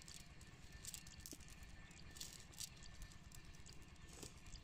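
Faint, irregular rustling of a nylon cast net as it is handled and fish are picked from its mesh.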